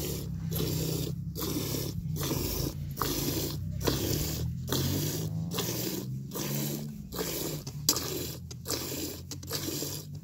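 Hand-milking a cow: milk squirting from the teats in spurts into a partly filled metal pail, with a hissing splash on each squeeze, about one a second and coming faster near the end.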